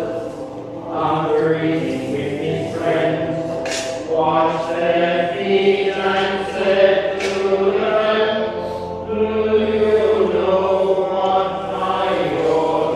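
Slow, chant-like hymn singing with long held notes, in several phrases with short breaks between them.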